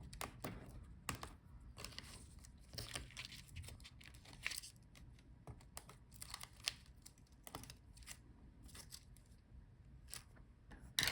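Irregular short clicks and rustles of small laptop cable connectors and flex cables being unplugged and handled on the motherboard.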